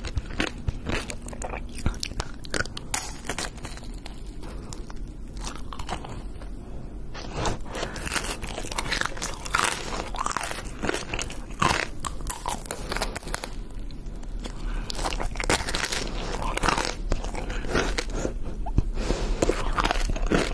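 Close-miked crunching and chewing of tanghulu, fruit on a skewer coated in a hard candy shell, the sugar glass cracking with many irregular crisp crunches.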